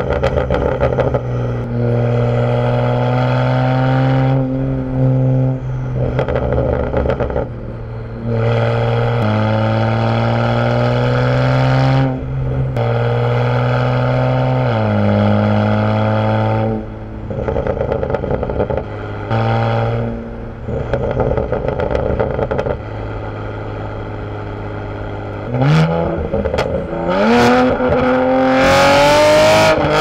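Modified BMW Z4's exhaust as it drives hard: the engine note climbs and drops back at each upshift several times, holds steady at cruise for a few seconds, then rises sharply near the end with a run of loud pops and crackles from the exhaust.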